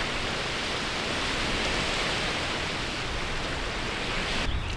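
Steady rushing hiss of falling water, which cuts off abruptly near the end.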